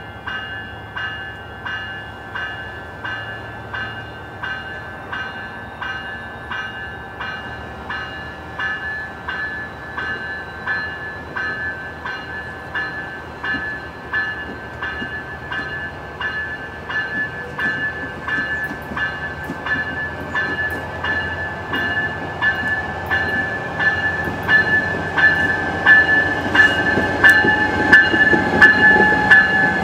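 A railroad bell ringing steadily about twice a second, getting louder, with a train's rumble building underneath near the end.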